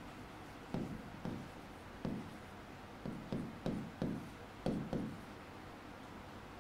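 Marker pen writing on a whiteboard: about nine short strokes in uneven clusters, from about one to five seconds in.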